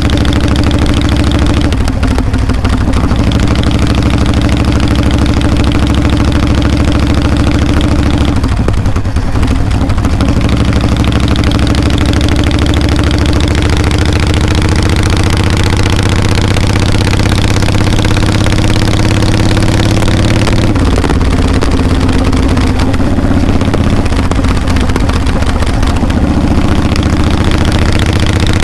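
Harley-Davidson V-twin engine and exhaust running steadily while the motorcycle rides down the road. The engine note shifts about 2 seconds in, around 9 seconds and again around 21 seconds, and climbs slowly in between.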